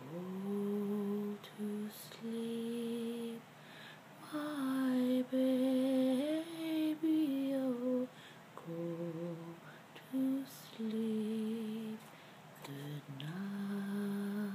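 A single voice humming a slow lullaby melody without words, in long held notes with short breaks between them.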